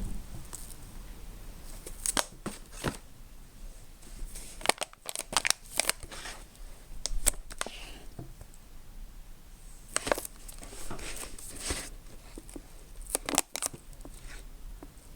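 Intermittent crinkling and sharp clicking handling noises, in short clusters about two, five to seven, ten to twelve and thirteen seconds in.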